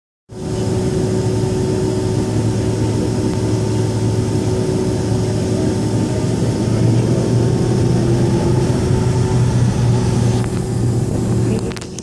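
Jet airliner heard from inside its cabin while taxiing: a loud, steady engine and airflow rumble with a few held hum tones through it. The level drops off sharply near the end.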